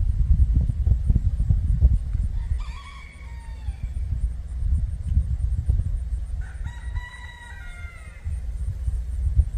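A rooster crows twice, each crow about a second and a half long and falling in pitch at the end. A loud low rumble runs underneath and is the loudest part.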